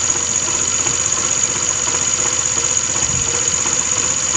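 TVS Scooty Streak scooter engine running steadily at idle with its clutch removed. It carries a steady high whine over a fine, rapid knocking: the noise of worn engine bearings on the magneto and clutch sides, which the mechanic takes as a sure sign the bearings have gone.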